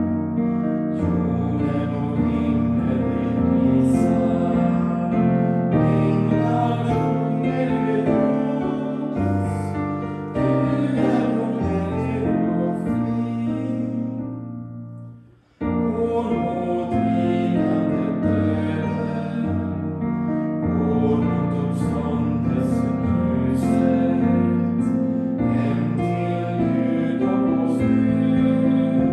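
Hymn sung with keyboard accompaniment, held chords under the melody. About halfway through the music dies away almost to nothing, then the next verse starts abruptly.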